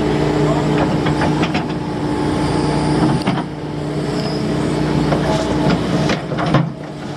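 Heavy construction machine's diesel engine running steadily, with several sharp metallic clanks and knocks scattered through.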